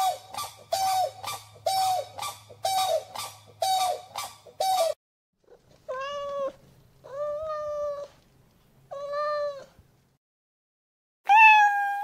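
Grey crowned crane giving short honking calls in a fast run, about two a second, that stops about five seconds in. Then a cat meows three times about a second apart, with a louder, higher meow near the end.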